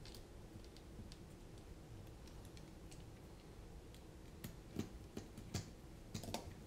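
Faint clicks and ticks of a small screwdriver and tiny screws working against a mini FPV camera bracket on a carbon-fibre drone frame, with a few louder clicks in the second half.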